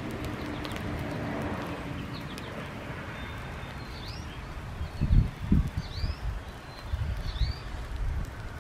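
Small birds chirping: several short rising calls over a steady outdoor background hiss, with a few low thumps about five seconds in.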